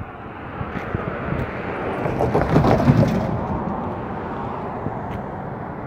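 A vehicle passing by, its noise building to a peak between two and a half and three seconds in, then fading away.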